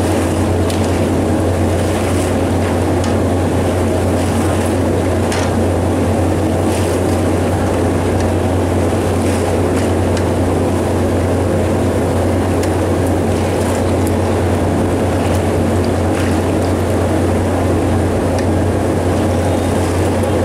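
Chegodi dough rings deep-frying in a large kadai of hot oil, the oil bubbling and sizzling over a steady low roar, with a few light scrapes of a slotted ladle against the pan.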